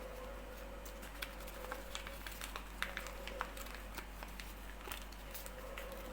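Origami paper rustling and crackling as it is folded and creased by hand, in a run of short, irregular crinkles and taps, over a faint steady hum.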